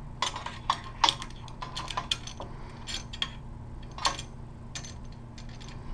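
Irregular sharp metal clicks and clinks of a steel hex key against screw heads and aluminium extrusion as a plate is screwed down onto T-nuts, over a steady low hum.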